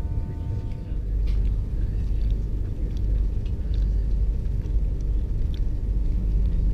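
Steady low rumble inside a passenger coach of an InterCity 225 train hauled by Class 91 electric locomotive 91105, as it pulls slowly away. The rumble grows a little louder about a second in.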